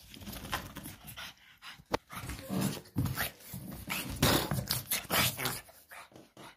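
A worked-up pug making rough, excited play noises in irregular bursts as it plays with a slipper, with one sharp click about two seconds in.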